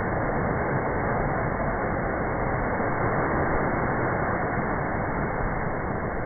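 Surf on the rocky shore with wind on the microphone, slowed down along with the slow-motion picture. It is a steady, muffled rushing noise with no separate wave hits.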